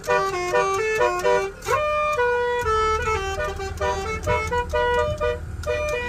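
Bus basuri musical air horns playing a fast tune of short stepped notes, with a quick upward pitch slide a little under two seconds in. A low rumble joins underneath from about halfway.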